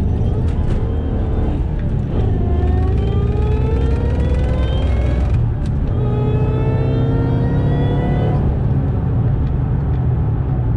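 2008 Shelby GT500's supercharged V8 accelerating hard under load, heard from inside the cabin. The revs climb through the gears, with breaks for gear changes about two and five and a half seconds in, then level off near the end. It pulls straight through without cutting out, with a new fuel rail pressure sensor fitted for a P0193 code.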